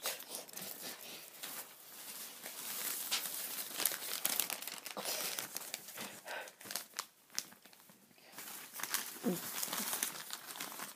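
Paper cutout puppets rustling and crinkling as they are handled and moved close to the microphone, in irregular crackles with a quieter stretch a little past the middle.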